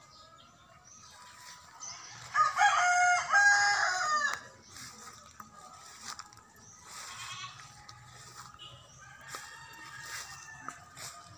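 A rooster crows once, a loud call of about two seconds starting a couple of seconds in; fainter calls follow later.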